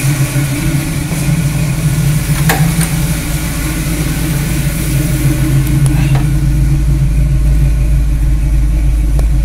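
1968 Camaro engine idling steadily, with a single click about two and a half seconds in.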